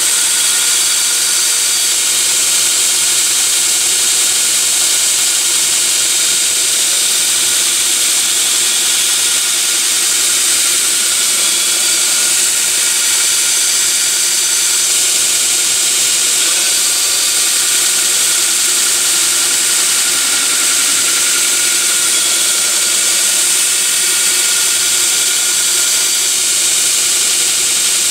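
Belt grinder running steadily, its sanding belt grinding a steel knife blade with a loud, even hiss.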